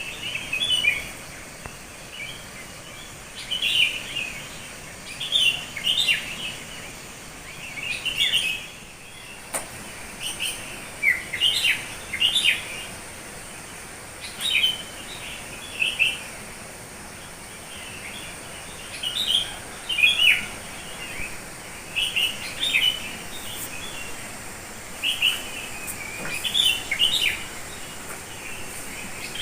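Wild songbirds chirping in short, quick phrases, one every second or two, over a steady high hiss.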